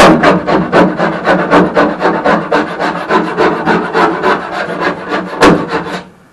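Hand scraper blade scraping tar sound-deadener off a car's steel floor pan in quick repeated strokes, about five or six a second, with one harder stroke near the end before it stops.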